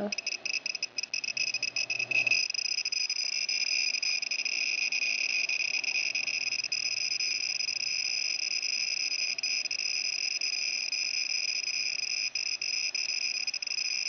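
Handheld Geiger counter over a pile of uranium minerals, clicking so fast that the counts run together into a continuous high-pitched buzz from about two seconds in: a very high dose rate, about 70 microsieverts per hour.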